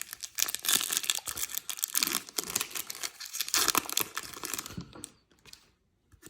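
A baseball-card pack wrapper being torn open and crinkled, a dense crackle that stops about five seconds in.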